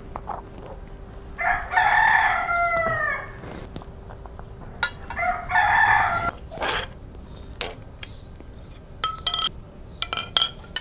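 A rooster crowing twice, each crow lasting about one and a half to two seconds. In the second half come a few sharp metallic clinks and knocks of the iron fire-rack poles being handled.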